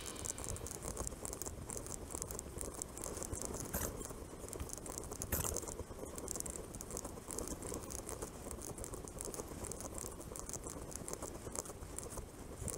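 Faint rattle and patter from a road bike rolling along a road, over a steady hiss of road and wind noise, with two sharper clicks about four and five and a half seconds in.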